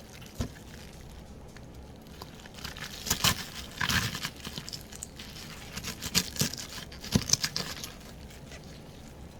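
Crinkling and tearing from kitchen handling, in two bursts about three and six seconds in, with a few light knocks between.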